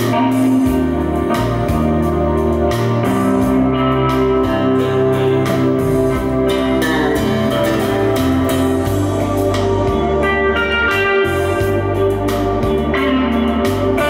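Music played back through a Harman Kardon Aura Studio speaker, with a deep bass line whose notes change about once a second under sustained higher notes.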